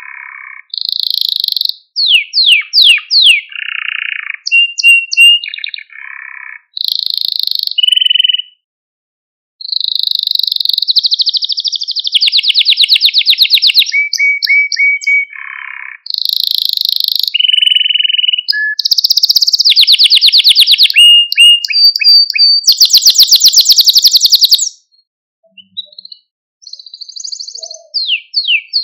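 Male domestic canary singing a long, varied song: rapid trills, downward-slurred notes and short steady whistles, mostly high-pitched, with a very fast buzzy trill about three-quarters of the way through and short pauses about a third of the way in and near the end.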